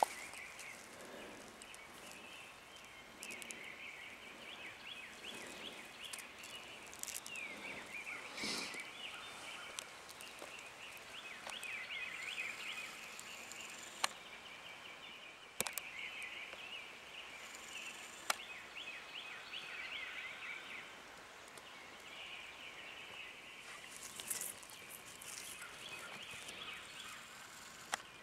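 Faint outdoor woodland ambience of small birds chirping and trilling, with a few sharp clicks and brief rustles.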